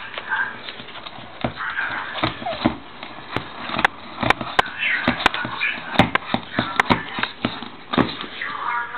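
Tortoises mating: irregular hard clacks of shell knocking against shell, with short high squeaking calls from the mounting male tortoise now and then.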